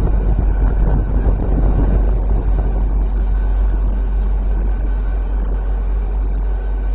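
Rumble of a train moving away along the tracks, slowly fading as it recedes.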